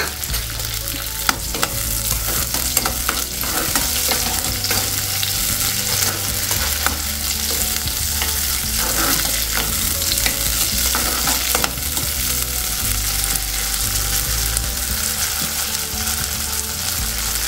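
Cut green chillies sizzling steadily as they fry in hot oil in a metal kadai. A steel ladle stirs them, with a few sharp clicks of the ladle against the pan.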